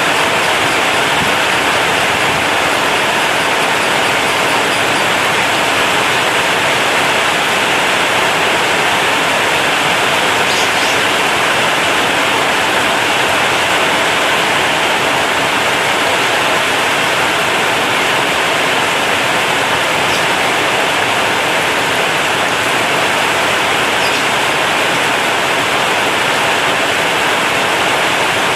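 Heavy rain drumming steadily on a corrugated zinc (seng) roof, a dense, even roar with no let-up.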